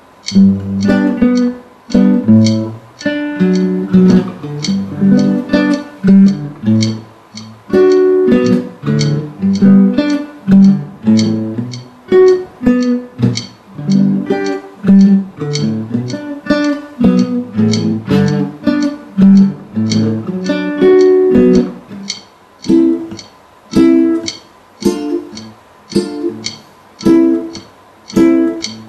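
Guitar playing chords and picked notes in a steady rhythm.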